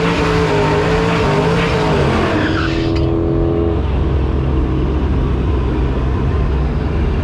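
Procharger-supercharged 5.7 Hemi V8 running loud, its pitch stepping down about two and a half seconds in and the high hiss above it cutting off about three seconds in.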